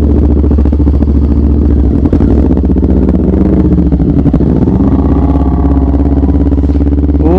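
2018 Kawasaki Ninja 250's parallel-twin engine, fitted with an R9 GP aftermarket exhaust, running as the motorcycle pulls away and rides along, its pitch rising and falling briefly about five seconds in.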